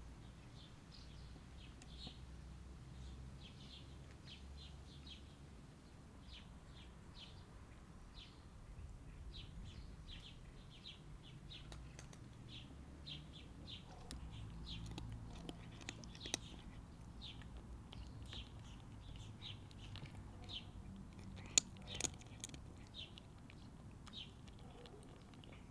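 Small birds chirping, many short high chirps in quick runs, over a faint low outdoor rumble. A few sharp clicks stand out in the second half.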